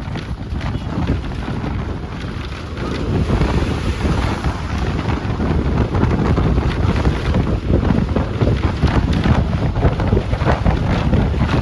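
A moving bus: steady engine and road noise with wind buffeting the microphone and scattered rattles, a little louder from about three seconds in.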